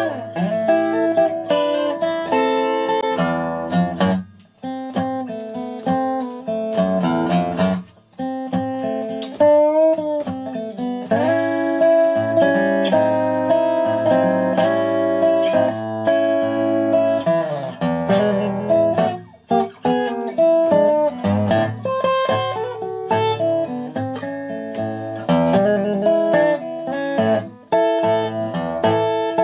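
Instrumental background music on plucked strings, guitar-like, with short pauses between phrases.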